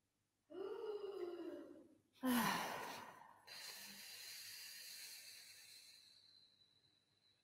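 Breathy vocal sounds from a performer on a close headset microphone: a wavering voiced sigh, then a sudden sharp exhalation falling in pitch, then a long hiss that slowly fades out.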